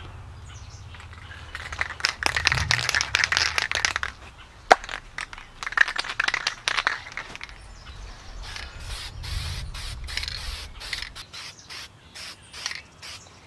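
Aerosol spray-paint can shaken hard, its mixing ball rattling in two long spells, then sprayed in a series of short hissing bursts.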